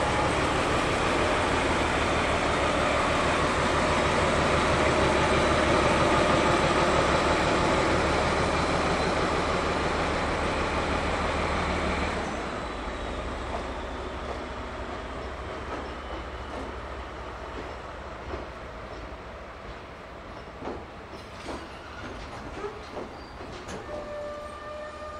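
A DE10 diesel-hydraulic locomotive's engine running loudly as it passes, towing an unpowered 103 series electric train. About twelve seconds in the locomotive has gone by and the sound drops to the towed cars rolling past, wheels clicking over rail joints, with a faint wheel squeal near the end.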